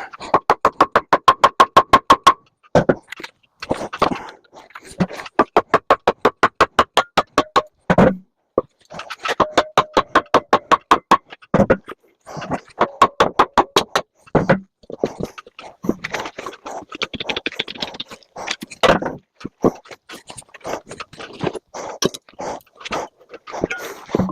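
Rapid runs of sharp hammer blows on a microwave oven's metal casing and parts, about eight strikes a second. The blows come in bursts of one to two seconds with short pauses between, some with a ringing metallic tone.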